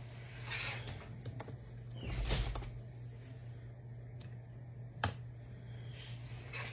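Small handling noises at a table: soft rustles and a few sharp clicks, the loudest a rustle about two seconds in and a single click about five seconds in, over a steady low electrical hum.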